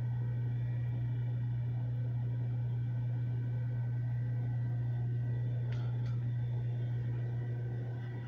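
Steady low hum, with two faint clicks about six seconds in; the hum fades near the end.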